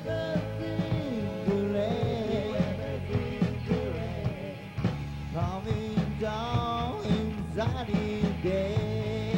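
Rock band music: electric guitar, bass guitar and drum kit playing under a melody line.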